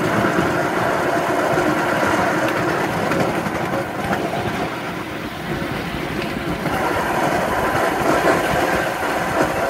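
Ride-on miniature train running steadily along the track, heard from on board: an engine-like drone with the rumble of the wheels on the rails.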